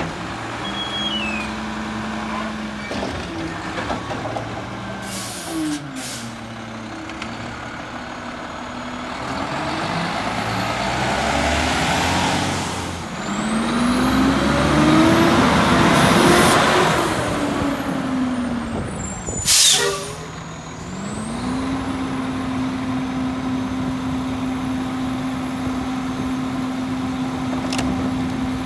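Garbage truck's diesel engine running, its pitch rising in a long swell and falling back. A short, sharp air-brake hiss comes about two-thirds through, after which the engine holds a steady pitch.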